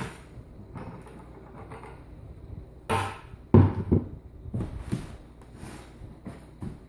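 A few separate knocks and clunks from a container and tools being handled, the loudest a little past halfway, followed by lighter taps.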